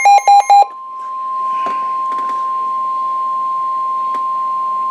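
NOAA Weather Radio warning alarm tone, a steady single high-pitched tone of about 1050 Hz, played through a Midland WR120B weather radio's speaker. The last few of a run of rapid electronic beeps sound over it and stop about half a second in.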